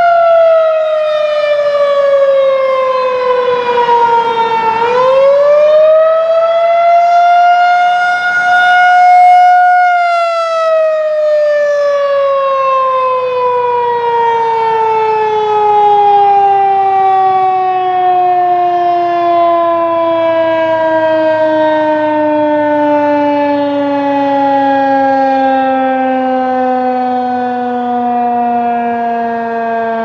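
Federal Signal 2001-130 rotating electromechanical outdoor warning siren sounding the attack signal. Its single wailing tone dips and rises again once, then falls in a long, slow glide as the rotor winds down.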